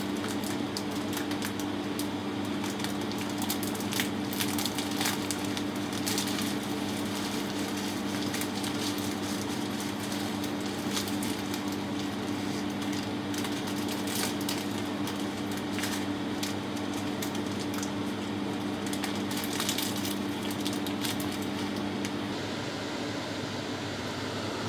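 Steady mechanical hum over an even hiss, with scattered light clicks; the hum's tone drops out about 22 seconds in, leaving the hiss.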